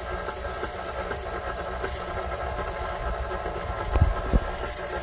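KitchenAid stand mixer running steadily, its motor humming as the flat beater turns butter and egg mixture in a stainless steel bowl. Two short thumps come about four seconds in.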